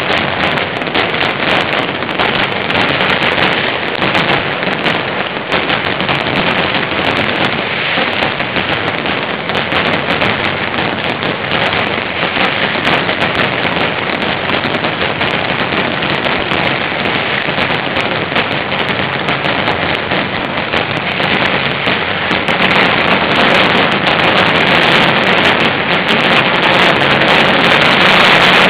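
Mascletà firecracker barrage: an unbroken, dense crackle of countless rapid small explosions, growing louder over the last few seconds.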